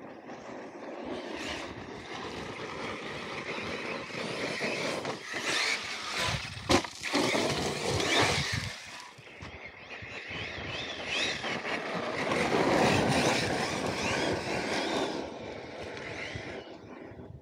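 Arrma Kraton 6S RC monster truck driving hard on gravel: its brushless electric motor whines up and down with the throttle over tyres crunching through loose gravel, with one sharp knock about seven seconds in.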